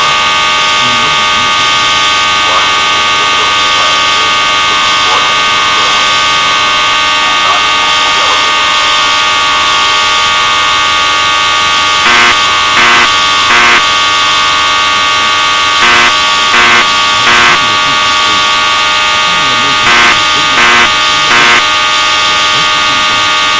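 Fire alarm horns sounding continuously with a steady buzzing tone. About halfway through, the temporal-three evacuation pattern joins in: three short, louder beeps, repeated about every four seconds.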